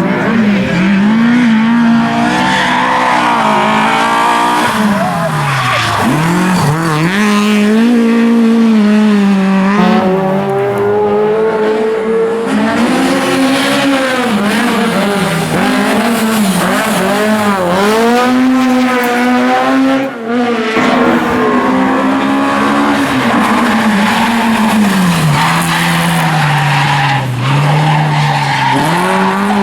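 Ford Escort RS rally car engine running at full throttle, its pitch climbing and dropping again and again through gear changes and lifts off the throttle. There are a couple of abrupt breaks where one run gives way to another.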